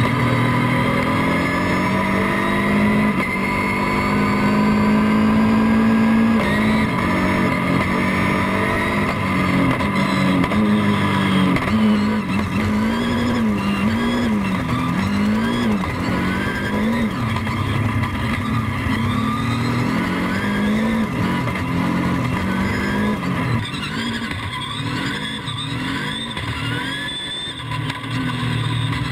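Dacia Duster No Limit hill-climb race car at full throttle on gravel, its engine note climbing and dropping again and again through gear changes and corners.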